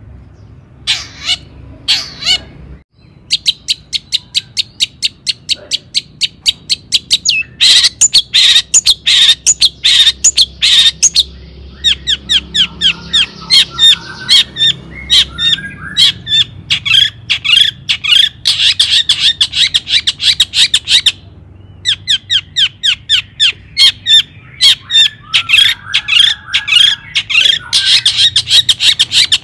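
Long-tailed shrike (cendet) calling in long runs of rapid, evenly repeated short high notes, broken by a few brief pauses, with a lower warbling chatter under the runs in places.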